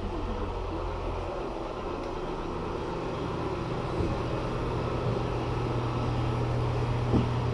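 Steady low mechanical hum, like a building's air-conditioning or refrigeration unit running, with a low steady tone that settles in about a second in.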